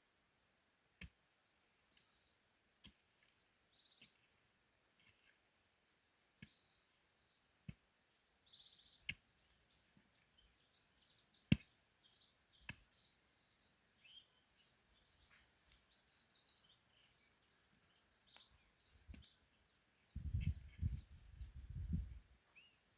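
Faint bird chirps and scattered sharp clicks, with a short burst of low rumbling near the end.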